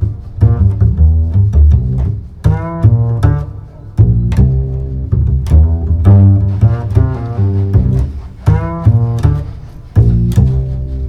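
Background music on low string instruments: plucked and bowed notes over a deep bass line, at a steady rhythmic pace.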